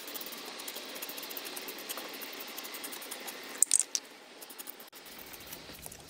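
BW-100 aerosol contact cleaner hissing as it is sprayed onto a vintage TV's circuit board contacts to revive them. A short cluster of sharp clicks comes a little past halfway.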